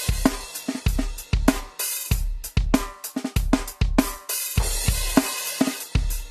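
Yamaha DTX8 electronic drum kit played as a drum beat, with its module's sampled kick drum, snare, hi-hat and cymbals heard dry, without added processing. Kick thumps and snare hits fall over a steady cymbal wash, and the playing stops right at the end.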